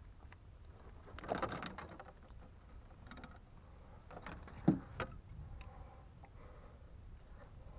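Striped bass flopping in a landing net on a boat deck: scattered knocks and rattles of the net frame and mesh, a rustling spell about a second in, and one sharp thump a little before the five-second mark.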